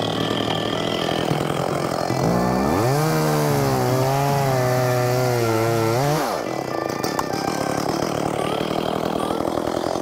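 Two-stroke chainsaw idling, revved up about two seconds in and held at high speed for about four seconds, its pitch wavering as it cuts wood. It then drops back to idle.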